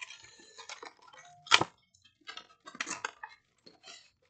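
Plastic wrapping and card packaging crinkling and tearing as a trading-card box is pulled open by hand, in irregular crackly bursts with one sharp rip about a second and a half in.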